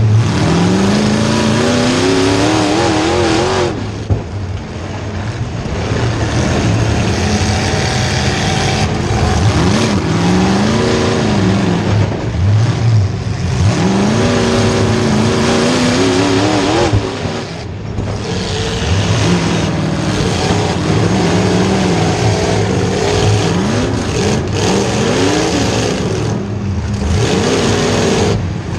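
Demolition derby car's small-block Chevy V8 revving hard, its pitch climbing and falling over and over as the throttle is opened, lifted and opened again. A brief sharp knock comes about four seconds in.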